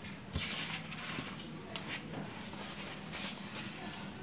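Faint scratching and rustling of pen and paper on a desk, with one small knock about half a second in, over a low steady hum.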